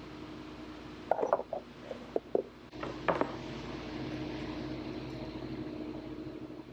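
Several sharp clinks and knocks of cheese-making utensils and containers, in clusters about a second in, around two seconds and around three seconds, over a steady electrical hum. A soft hiss swells after the last knocks.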